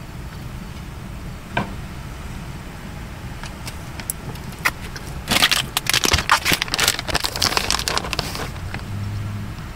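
Plastic bag of shredded mozzarella crinkling and rustling for about three seconds, starting about five seconds in, as it is handled and opened, over a steady low rumble.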